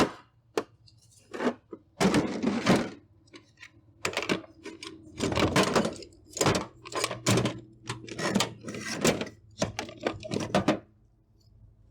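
Tools and parts being handled and moved about in a drawer of a metal Cornwell roll cart: a busy run of irregular clunks, knocks and rattles that stops near the end.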